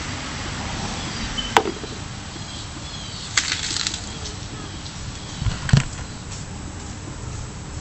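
Small harvested potatoes being dropped into a bucket while hands sort through loose soil: a sharp knock, then a short rattle, then a duller thud, over a steady outdoor hiss.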